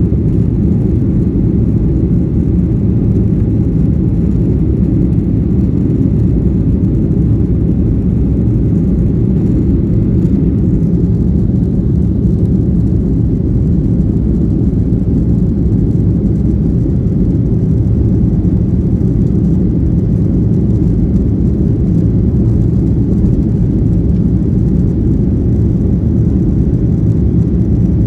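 Airliner cabin noise: a steady low drone of jet engines and airflow heard from inside the cabin, unchanging throughout.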